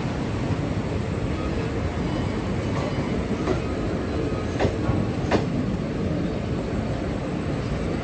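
Trains running side by side: a steady rolling rumble of wheels on rail, with wheels clacking over rail joints a few times in the second half.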